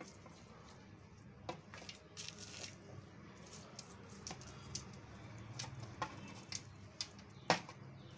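Hands rubbing ginger-garlic-green-chilli paste into raw beef chops: faint wet squishing, with a few sharp clicks, the loudest near the end.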